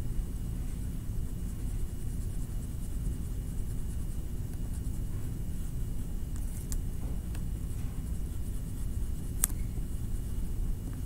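Faint scratching of a black crayon on paper as a drawing is outlined, over a steady low rumble of background noise and a faint high tone. A few sharp clicks stand out, the sharpest about nine and a half seconds in.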